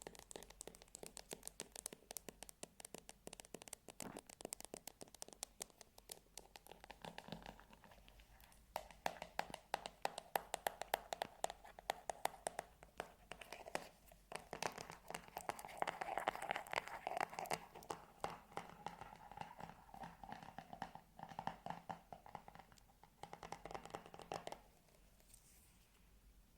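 ASMR scratching: fast, dense scratching and tapping on a surface, busiest in the middle and stopping shortly before the end.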